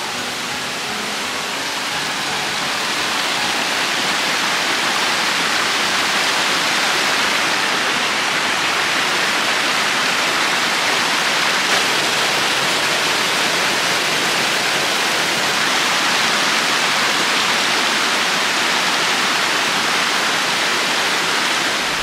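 Mountain stream rushing over small rocky cascades: a steady, full rush of water, growing a little louder over the first few seconds.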